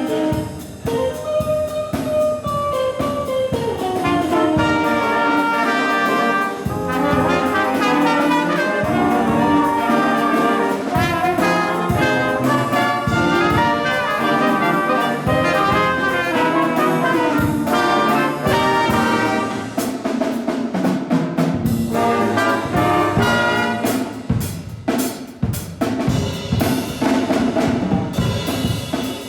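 Live jazz band music led by brass, trumpets and trombones, over a drum kit.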